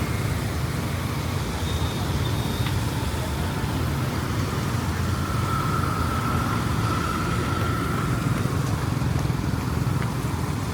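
Steady road traffic: vehicle engines running and passing on a busy street, an even continuous rumble.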